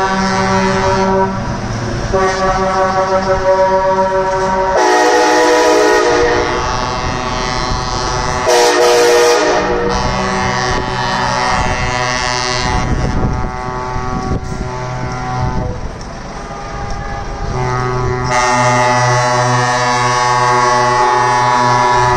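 Truck air horns blowing long, overlapping blasts, several horns sounding together at different pitches, with the mix of horns changing a few times.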